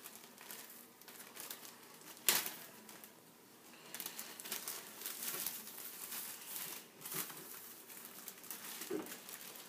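Rustling and light clicking from measuring out sugar with a measuring cup, with one sharp click about two seconds in and a dull knock near the end.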